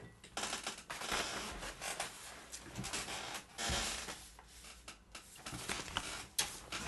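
Sheets of paper rustling and crackling as they are handled and leafed through, in short irregular bursts.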